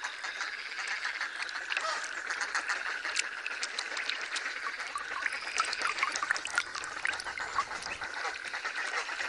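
A chorus of wetland birds calling at once: many short, overlapping quacking and chattering calls, duck-like among them.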